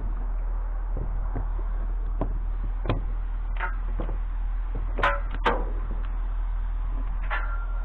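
Metal scrap clanking and knocking as it is handled: scattered knocks, a few of which ring on, with two loud ringing clangs about five seconds in, over a steady low hum.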